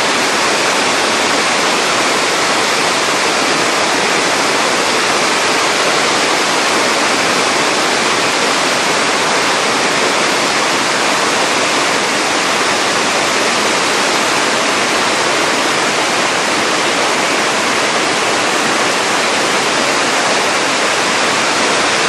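Steady rushing of Shirahige Falls, spring water pouring down the cliff into the river below.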